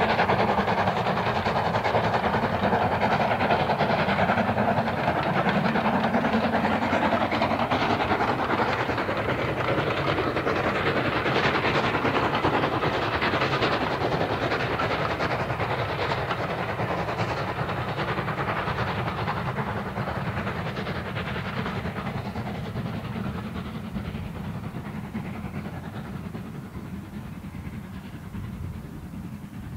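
LSWR S15 4-6-0 steam locomotive working hard as it hauls a passenger train past. Loud and steady at first, it fades away over the last ten seconds as the train draws off.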